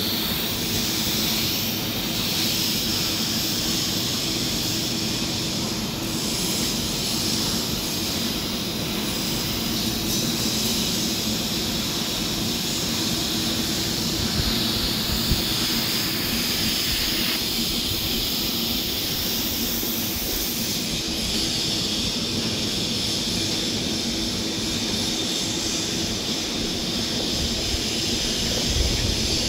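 TIG welding arc on a carbon steel pipe joint, a steady hiss over a constant low hum.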